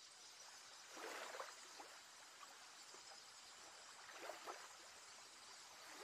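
Near silence: faint outdoor ambience, with a couple of faint, brief sounds about a second in and again a little past the middle.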